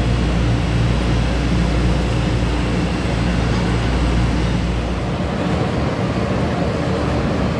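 Diesel locomotive of a blue-coach passenger train running with a steady low engine hum and rumble; the deepest part of the hum falls away about five seconds in.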